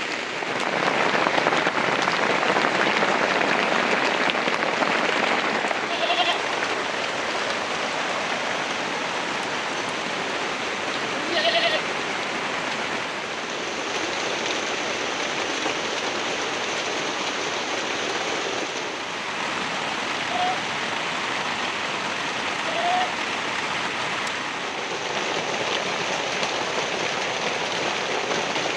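Heavy rain falling steadily on surfaces, a little louder in the first few seconds. Brief animal calls break through four times, short bleat-like cries.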